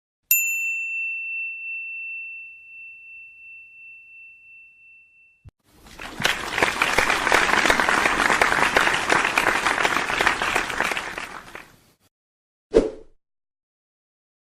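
A run of stock sound effects: a single bright bell ding that rings out and fades over about five seconds, then about six seconds of applause, then one short hit near the end.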